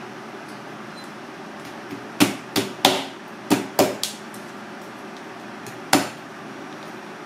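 A Tojiro-Pro kitchen knife chopping down onto a plastic cutting board, cutting the fin spines off a crocodile fish fillet. There are seven sharp knocks: two quick runs of three, then one more about two seconds later.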